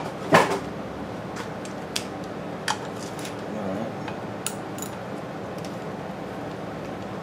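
A sharp metallic clunk just after the start, then scattered light metal clicks and clinks as hands work at the cylinder head of a Briggs & Stratton NR6 engine, over a steady low hum.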